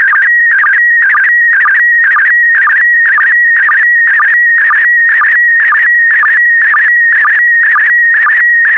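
Slow-scan television (SSTV) signal in PD120 mode transmitting picture lines: a loud warbling electronic tone near 2 kHz, broken by a repeating pulse about two to three times a second.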